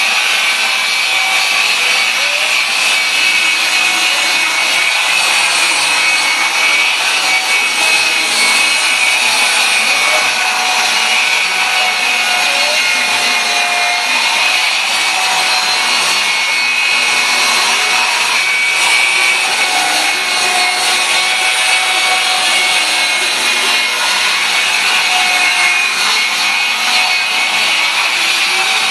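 Loud, steady machine noise: a high-pitched whine over a hiss, barely changing.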